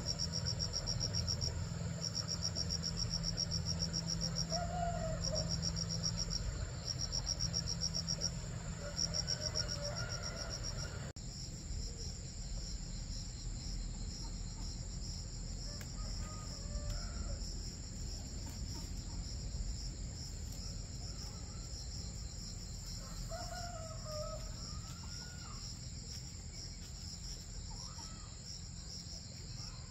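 Insects chirping in a high, pulsing rhythm, changing suddenly to a continuous trill about eleven seconds in, over a low steady hum.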